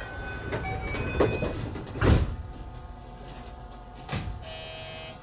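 Cab sounds of a JR West 221 series electric train at a station stop around departure: a few short electronic tones, a loud thump as the sliding doors shut about two seconds in, and a short buzzer tone near the end.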